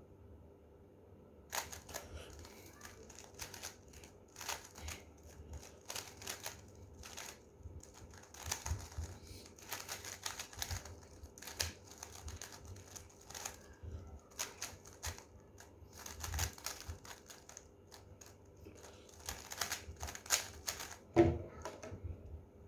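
Gan 356 M speed cube being turned fast, a stream of quick clicking and clacking layer turns for about twenty seconds. A louder single knock comes near the end.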